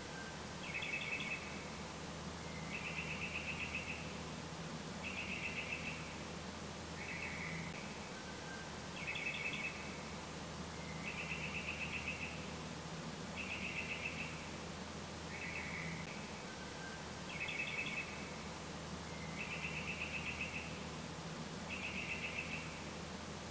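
A bird singing: a short trilled phrase about every two seconds, the phrases varying in length and pitch, over a steady low hum.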